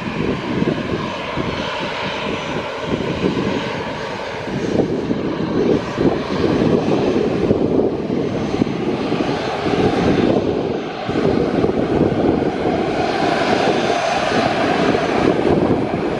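An airliner's engines running, heard through heavy wind buffeting on the microphone, the engine sound swelling in the second half.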